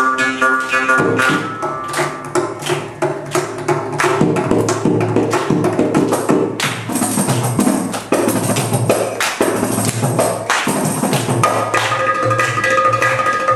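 Carnatic percussion ensemble of ghatam clay pot, kanjira frame drum with jingles and mridangam playing fast, dense rhythmic strokes. A morsing's twanging drone stops about a second in.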